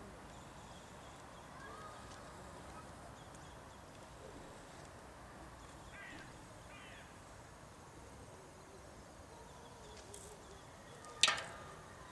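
Quiet outdoor ambience with a faint steady hiss and a few faint bird-like chirps. A single sharp knock that rings briefly comes about eleven seconds in, the loudest sound.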